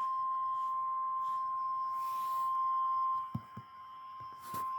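Severe-weather warning alarm tone: one steady high pitch held without a break, the 1050 Hz tone of NOAA Weather Radio that sounds before a National Weather Service warning. A few faint low thumps come near the end.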